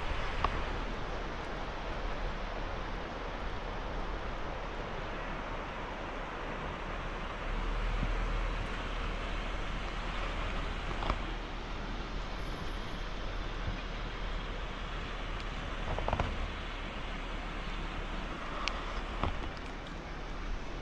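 2005 Honda Pilot crawling slowly over rough off-road ground: a steady rumble of engine and tyres, with a few sharp knocks along the way.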